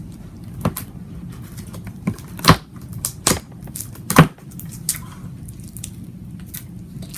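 Crunchy slime being squeezed and played with by hand, giving about six sharp crackles and pops, the loudest about two and a half and four seconds in.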